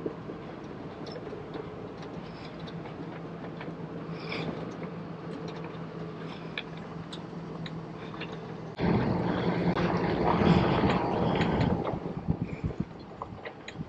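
Engine of the boatyard vehicle carrying the sailboat down to the water for launch, running steadily, then suddenly much louder from about nine seconds in for some three seconds before easing off.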